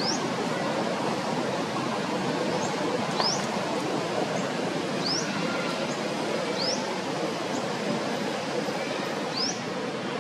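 Steady outdoor background noise with a bird calling a short, high, rising note five times, one to three seconds apart.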